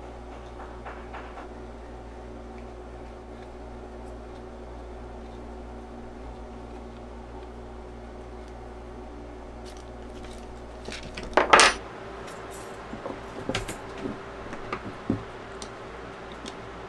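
Small steel tools clinking: a loud metal clatter about eleven seconds in, then several lighter clinks, as an open-end wrench is handled against a grinder armature's shaft and fan assembly. A steady low hum runs underneath.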